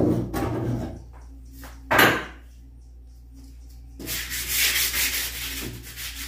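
Sandpaper rubbed by hand over a wooden door frame. A short scrape comes about two seconds in, then a steady run of back-and-forth rubbing strokes from about four seconds on.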